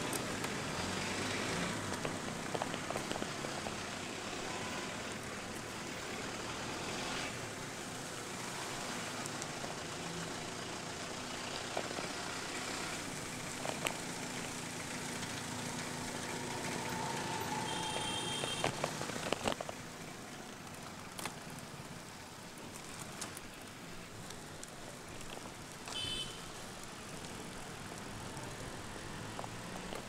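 Steady hiss of rain and a road bike's tyres on a wet road, with scattered ticks of raindrops striking the camera. Two short high tones cut through, one a little past halfway and another near the end.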